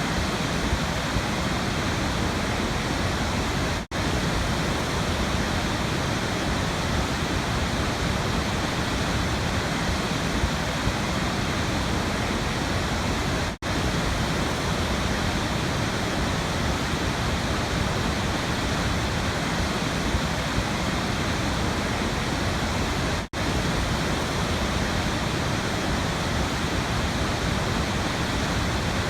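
Waterfall rushing with a steady, even roar of falling water, broken three times by a brief sharp dropout about ten seconds apart.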